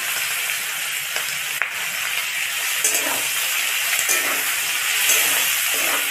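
Chopped onion, capsicum and tomato sizzling steadily in hot oil in a metal kadai, with a metal spatula stirring and scraping against the pan a few times.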